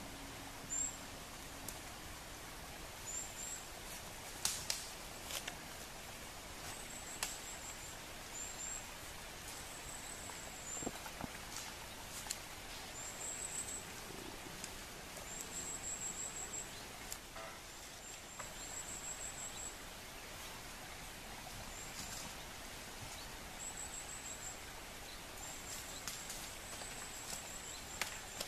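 Quiet forest sound: a high, thin chirp repeated every second or two, with scattered sharp clicks and snaps as a red deer stag moves and feeds in the undergrowth.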